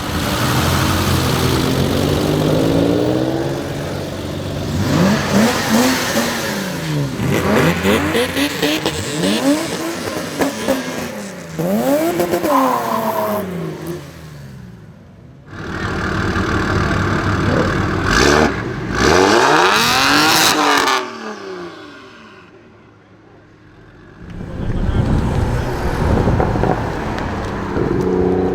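BMW car engines revved hard again and again, the pitch climbing and dropping in quick sweeps over loud exhaust noise. This comes in several bursts, with two brief quieter breaks.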